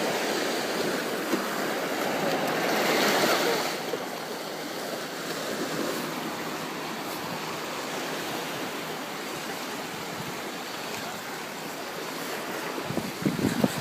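Ocean surf washing on the shore: a steady hiss of waves, rising to a louder wash about three seconds in. Wind buffets the microphone a few times near the end.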